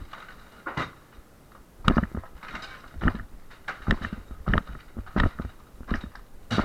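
A series of sharp, heavy blows about every half second to a second, as partition walls are broken down with hand tools.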